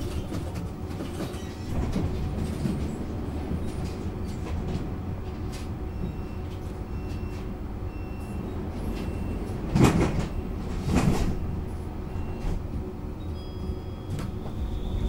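Bombardier Flexity Outlook C low-floor tram standing at a stop, heard from inside: a steady low rumble, then a run of short high beeps for a few seconds, the door-closing warning, followed by two loud knocks about a second apart as the doors shut. Near the end a high steady tone comes on as the tram gets ready to pull away.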